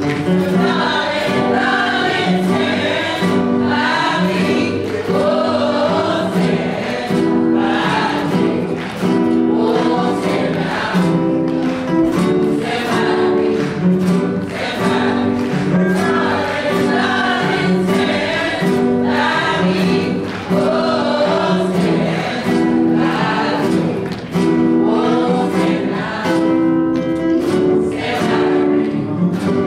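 A small student choir singing together, accompanied by several strummed acoustic guitars.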